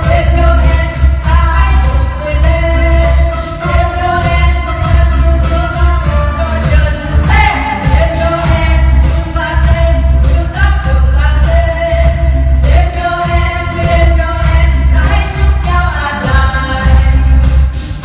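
A group of women singing into microphones over loud amplified backing music with a heavy, steady bass beat.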